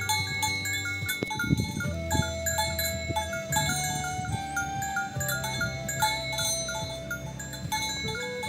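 Background music with a repeating pattern of chime-like mallet notes and held tones, over the calls of cattle.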